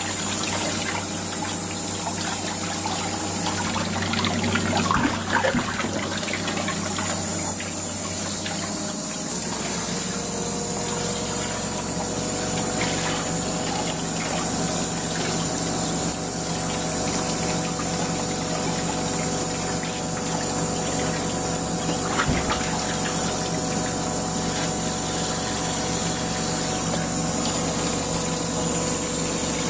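Water running from a shower hose over a wet poodle's coat and splashing into a grooming tub, with a steady hum underneath that changes note about nine seconds in.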